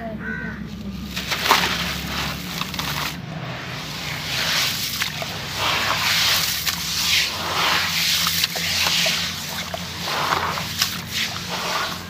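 Hands crumbling a dry sand-cement block into a tub of muddy water, with gritty crunching and crackling, small splashes and sloshing as the wet grit is swished and rubbed around the tub.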